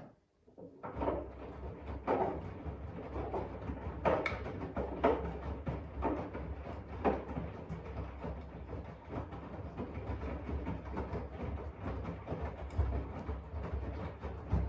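AEG 7000 Series front-loading washing machine in its main wash: the drum turning with laundry and water sloshing unevenly over a steady low motor hum, starting about a second in after a click.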